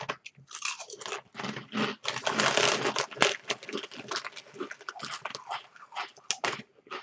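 A person biting into and chewing potato chips, with a run of loud, irregular crunches that is densest a couple of seconds in.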